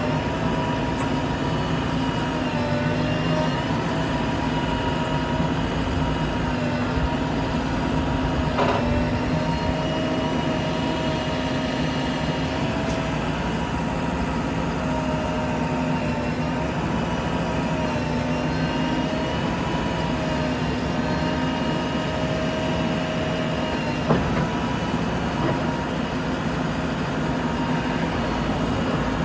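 JCB 3DX backhoe loader's diesel engine running steadily, with a constant whine over the engine note and a single sharp knock late on.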